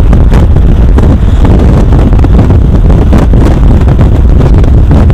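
Car driving along a country road, with heavy wind buffeting the microphone over a steady low road rumble.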